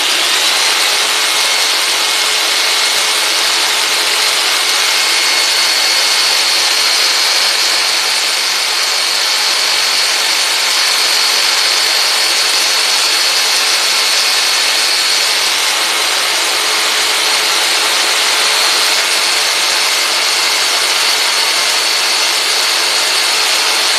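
Black & Decker jigsaw running continuously, its blade replaced by a golf ball glued on as a homemade percussion massager. The motor gives a steady high whine over a loud buzz.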